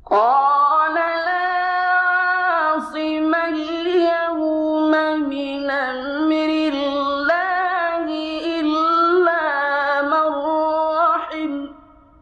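Male Qur'an reciter chanting one long, high melodic phrase, the voice held on sustained notes with small ornamental turns of pitch; it falls away about a second before the end.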